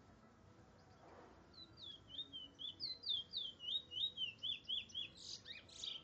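Trinidad bullfinch (chestnut-bellied seed finch) singing: a quick run of slurred high whistled notes, about three or four a second, starting about a second and a half in and ending in a couple of louder, rougher notes.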